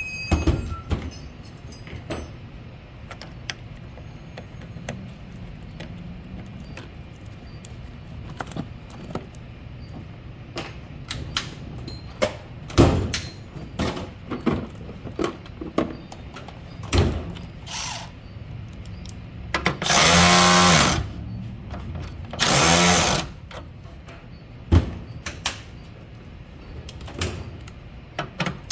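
Power tool run in two short bursts of about a second each, a few seconds apart, as fasteners are driven during an alternator replacement on a Toyota Camry, among scattered clicks and knocks of hand tools and metal parts.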